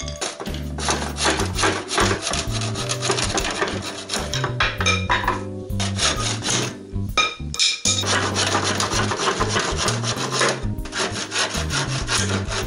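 A hand saw cutting through round wooden crib bars in quick back-and-forth strokes, pausing briefly a little past halfway before sawing on. Background music plays underneath.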